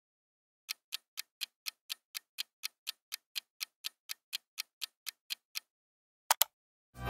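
Clock-style ticking sound effect for a countdown timer, about four ticks a second for roughly five seconds. It stops, two sharp clicks follow close together, and music comes in at the very end.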